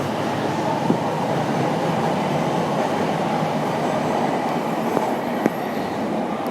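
Train running with a steady rumble, with a few sharp clicks, one about a second in and two near the end.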